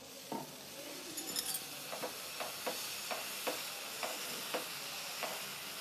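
Dosa batter sizzling on a hot nonstick tawa while the back of a steel ladle spreads it in circles, scraping softly about twice a second.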